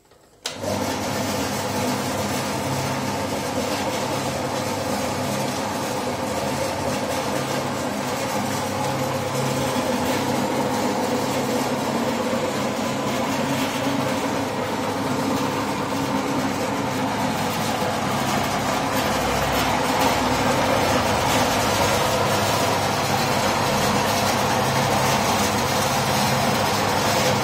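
Rambak cracker slicing machine, its 1/4 HP electric motor spinning a steel disc blade: switched on about half a second in, then running steadily with a low hum. A log of rambak is fed through the steel tube and sliced thin.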